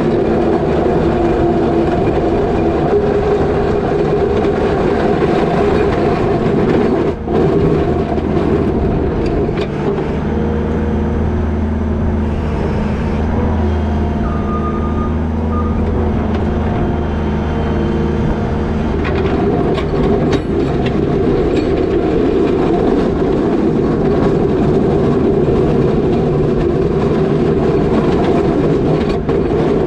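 New Holland L220 skid steer's diesel engine running steadily while it plows wet snow, with a steadier low drone between about ten and eighteen seconds in. A brief high beep sounds about halfway through.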